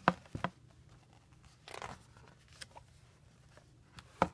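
A picture book's paper page being turned and the book handled: a few light clicks, a brief papery rustle about two seconds in, and a sharp tap near the end.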